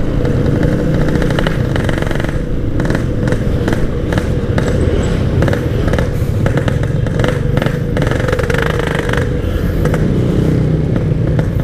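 Yamaha RX-King two-stroke motorcycle engine running at a steady speed while riding, with rushing wind noise over it.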